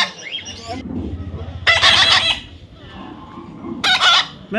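Young parrot giving two loud, harsh screeching calls, the first about two seconds in and the second near the end.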